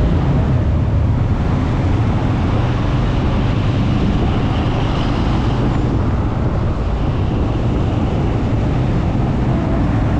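Steady rumble of a motorcycle riding through a road tunnel: engine and road noise, with a continuous low rush on the microphone.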